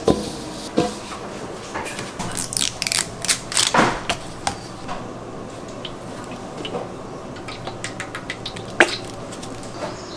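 Kitchen work sounds: utensils and dishes knocking and clicking. A busy run of knocks and scrapes about two to four seconds in, then sparser clicks, with one sharp click near the end.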